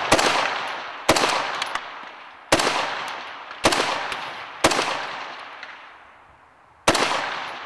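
Six rifle shots from scoped precision rifles, a semi-automatic .223 Special Purpose Rifle among them, fired a second or so apart with a longer pause before the last. Each crack is followed by a long echo dying away.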